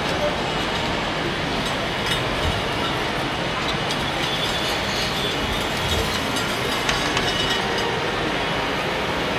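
Steady, even din of a large, busy exhibition hall, with a few faint knocks.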